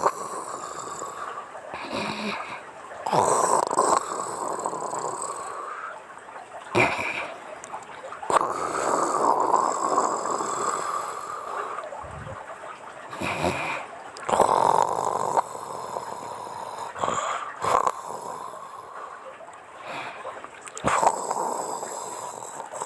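A woman snoring: long, rasping breaths that come every few seconds.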